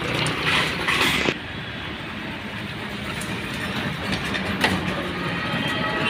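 A motor vehicle running, with a steady low road rumble and a few knocks and rattles. The higher hiss drops away abruptly about a second in.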